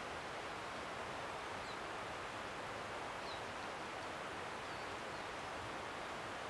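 Steady woodland ambience: an even rushing hiss, with a few faint, short, high bird chirps scattered through it.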